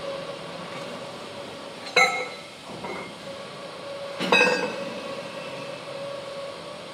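Steel slitter knives and spacer rings being handled on a slitting machine's arbor shaft: two sharp metal-on-metal clinks that ring on briefly, about two seconds apart, over a steady machine hum.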